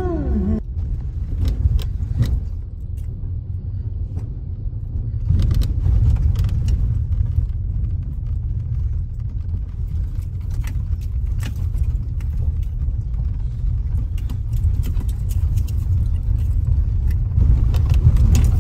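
A car driving, with a steady low road rumble and frequent short rattles and knocks throughout.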